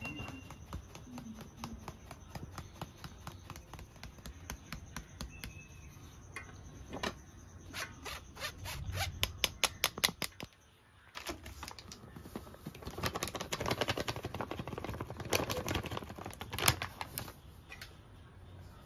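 Rapid light clicks and taps of kitchen utensils, with some scraping, in two busy runs broken by a short pause about halfway through.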